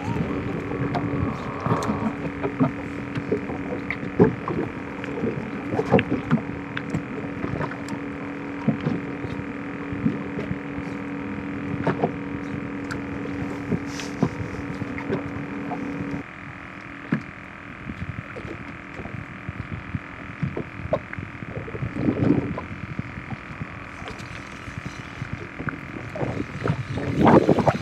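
Underwater sound picked up by a GoPro held below the surface: a steady muffled hum with frequent clicks and crackles. The hum's steady tone cuts off about sixteen seconds in, and a couple of louder low bursts come near the end.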